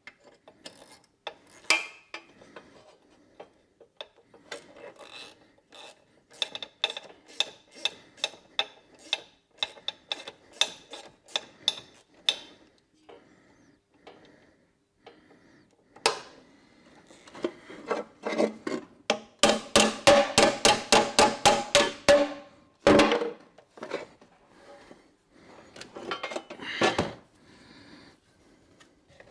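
Ratchet wrench clicking in runs on metal, with metallic clinks. A slower run of about three clicks a second comes first; about twenty seconds in there is a faster, louder run with a ringing tone.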